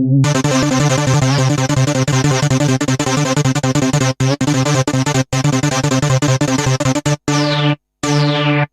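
Synthesizer sound effects: a fast, busy warbling electronic pattern with repeated falling sweeps on top, which near the end breaks into short chunks that stop and start abruptly.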